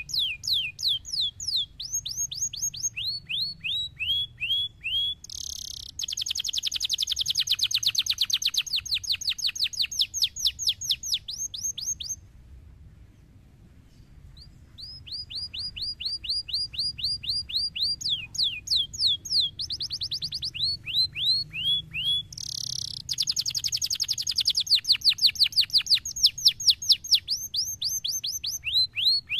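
Domestic canary singing in fast repeated trills of sweeping notes, some slower and some very rapid and rolling. The song stops for about two seconds near the middle, then starts again.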